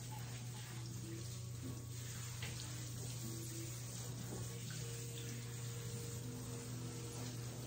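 Handheld shower sprayer running, water spraying onto a wet dog's coat and splashing in a stainless steel grooming tub, over a steady low hum.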